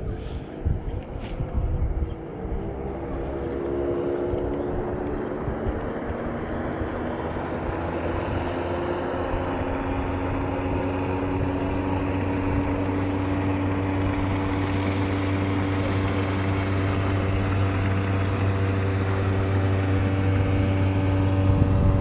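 An engine running steadily, its pitch rising a few seconds in and then holding, and growing gradually louder as it draws nearer.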